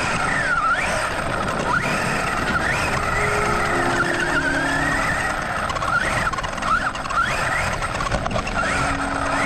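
Brushless electric motor and drivetrain of a Losi DBXL 1/5-scale buggy whining, rising and falling in pitch over and over as the throttle changes. It is heard from a camera mounted on the car, with a steady rush of tyre and gravel noise and wind.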